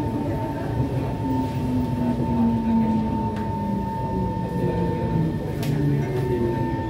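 Kawasaki C151 metro train heard from inside the carriage while running, with a steady rumble and a constant high whine. A lower electric-motor tone falls steadily in pitch as the train slows toward a station.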